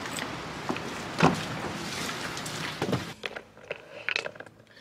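Steady hiss of rain with a few knocks and a thump as a car door is opened and someone climbs in; about three seconds in the door shuts and the hiss drops away to the quiet of the car's cabin, with a few small clicks.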